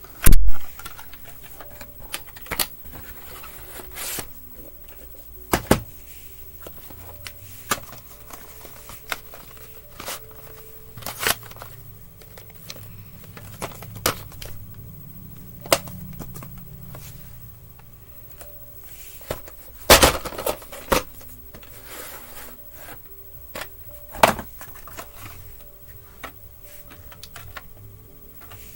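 Plastic VHS tape cases being handled and set down on a wooden floor: scattered clicks and knocks, the loudest about half a second in and a quick cluster about twenty seconds in.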